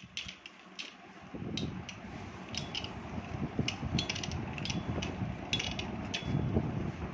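Two metal Beyblade spinning tops whirring and rattling as they spin in a plastic lid, the whir growing louder about a second in. Sharp clicks come every second or so as the tops knock against each other or the plastic rim.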